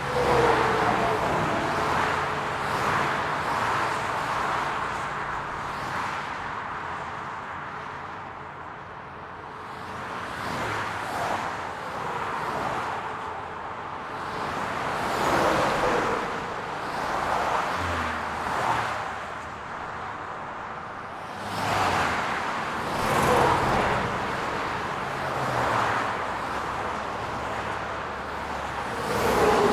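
Highway traffic: a continuous stream of cars going past, each one swelling and fading, with the engine and tyre tone dropping in pitch as some pass. The traffic thins to a quieter lull about a third of the way in, then builds again with several loud pass-bys.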